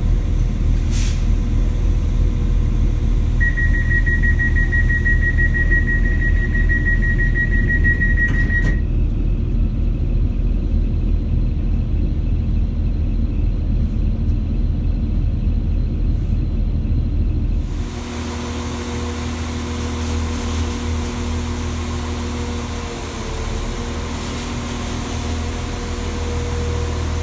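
Class 196 diesel multiple unit with MTU six-cylinder diesel engines, heard on board: a steady low diesel rumble. A rapid high beeping, typical of door-closing warning tones, runs for about five seconds, and the outside background cuts off when it stops. About eighteen seconds in, the low rumble drops and the engine and transmission settle into a steadier, higher hum with whining tones that dip briefly and then start to rise near the end.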